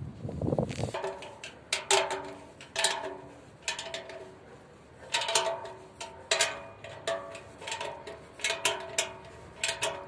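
Irregular metal knocks and clinks from a satellite dish's steel bracket and mast clamp as the dish is swung by hand while being aimed, each knock followed by a short ring at the same few pitches; about a dozen over the stretch.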